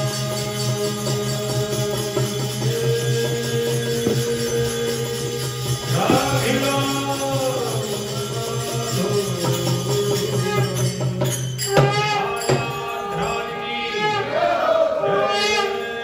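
Devotional hymn music: a steady held drone, with sung voices coming in about six seconds in and again from about twelve seconds on. Jingling percussion accompanies them.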